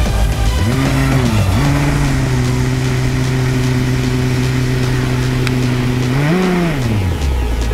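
Single-cylinder two-stroke 25cc petrol engine of a ROVAN Baja RC buggy, heard close up from on board. It revs up about a second in, dips briefly, holds a steady pitch under throttle for a few seconds, rises again briefly near the end, then falls away as the throttle is released.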